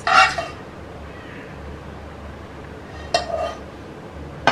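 A spoon clinking against a plate as chicken pieces are put onto a roti: two short clinks about three seconds apart, then a sharp tap near the end.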